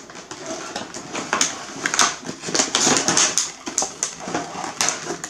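A cardboard box being opened by hand and a moulded plastic tray of slime tubs slid out of it: an irregular run of rustles, scrapes and sharp clicks.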